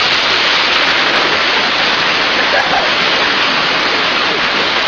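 Waterfall pouring into a pool: a loud, steady rush of water.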